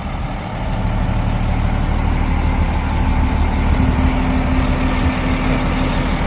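Diesel engine of a Caterpillar 966H wheel loader idling steadily, running again on a replacement ECM after a no-start. A faint steady whine joins the drone a couple of seconds in.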